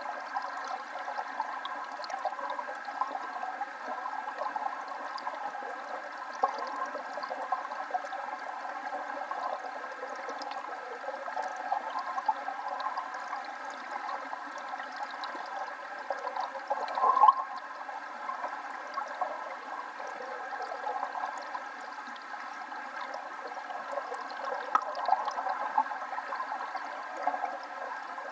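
A waterfall: water falling and splashing steadily, with no deep rumble and a brief louder surge about seventeen seconds in.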